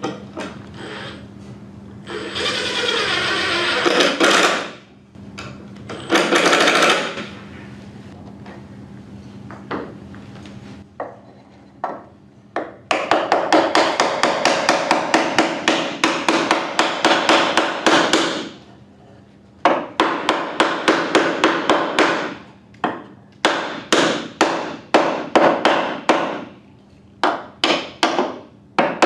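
A power drill-driver runs briefly twice, driving screws into timber framing. Then a hammer strikes the wooden pieces in a fast, steady run of taps for several seconds, followed by short bursts of taps, knocking the joints into place.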